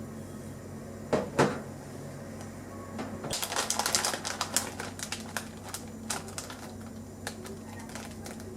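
Two knocks about a second in, then a rapid run of light clicks and clatters that thins out toward the end, over a steady low hum.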